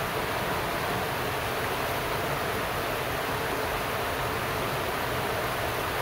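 Steady rushing of a river swollen after rain, running fast over rocks and shallow rapids.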